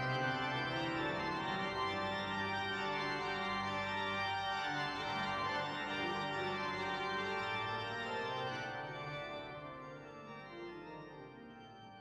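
Closing background music of held keyboard chords, fading out over the last few seconds.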